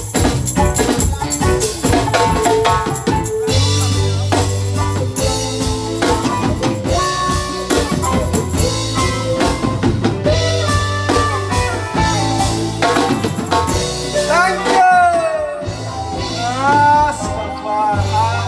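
Live roots reggae band playing: drum kit, bass line, acoustic guitar, keyboard and hand drums under a lead singer, whose voice slides up and down in pitch about two thirds of the way through.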